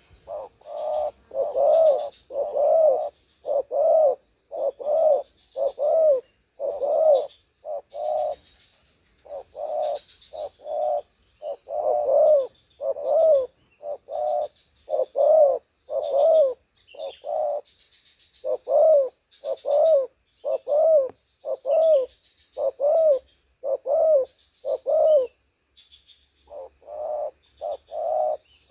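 Spotted doves cooing over and over, in runs of about two coos a second with brief pauses between runs. A faint, high repeated note sounds above the cooing.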